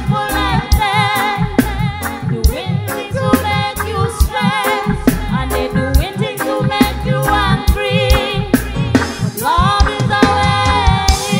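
Live reggae band playing, with a woman singing wavering, sustained notes over a steady bass line and regular drum hits.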